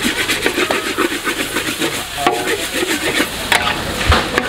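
Metal spatula scraping and clattering rapidly against a wok as fried noodles are tossed, over a steady sizzle from the hot pan.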